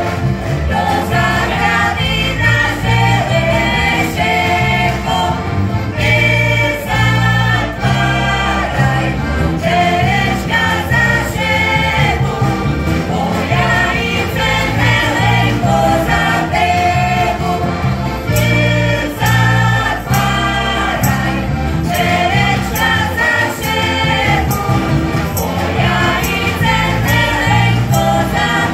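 Slovak folk song played on heligónkas (diatonic button accordions), with bass guitar and acoustic guitar keeping a steady beat under voices singing together.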